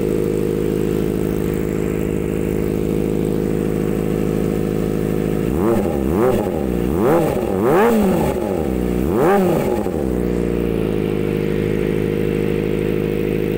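Kawasaki ZX-25R's inline-four engine idling through a custom Austin Racing-style slip-on exhaust, then blipped about four times in quick succession from about five and a half seconds in, the revs rising and falling sharply with each blip before settling back to a steady idle.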